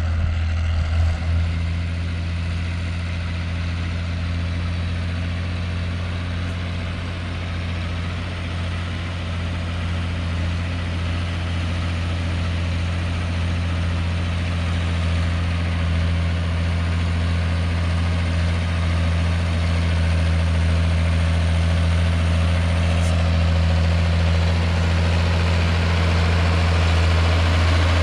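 Ursus 1214 tractor's six-cylinder turbo-diesel engine running steadily under load, around 1600 rpm, as it pulls a plough through the soil: a steady roar with a deep hum that grows louder in the last third as the tractor comes close.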